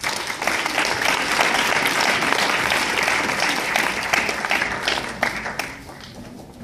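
Audience applauding, many hands clapping together; the applause starts at once and dies away over the last second or so.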